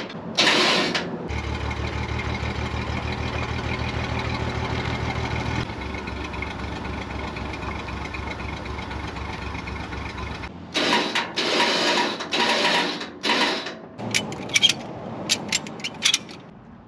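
An engine idling steadily for about nine seconds and then cutting out, followed by a series of metal clanks and sharp knocks.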